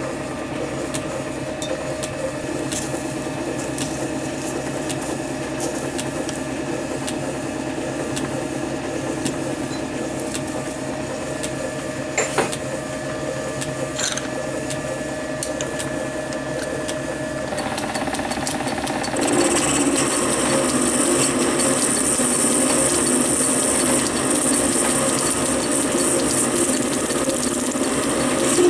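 Small metal lathe humming steadily, with a couple of sharp clicks around the middle. About 18 seconds in it grows louder and a high hiss joins it as the tool faces the end of a brass rod held in the chuck.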